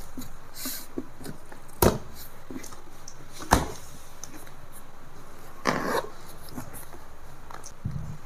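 Cardboard box and packing being handled while it is opened: two sharp knocks about a second and a half apart, then a brief rustle a couple of seconds later.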